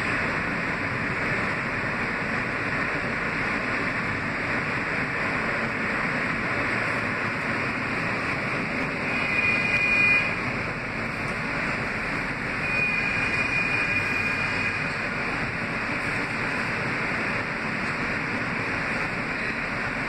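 Kawasaki R160B subway car with Siemens propulsion running at a steady speed, heard from inside the car: a steady rumble and rush of wheels on rail. Two thin, high-pitched squeals come through, one about nine seconds in and one about thirteen seconds in.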